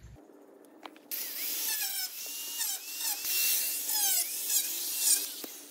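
Power tool with a cutoff wheel cutting through welded field-fence wire. It starts about a second in, and its whine dips and rises in pitch as the wheel bites into the wires. It stops just before the end.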